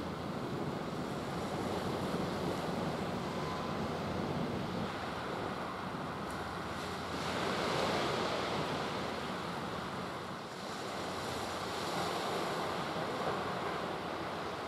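Sea waves washing in, with wind on the microphone: a steady rushing that swells and eases, loudest about eight seconds in.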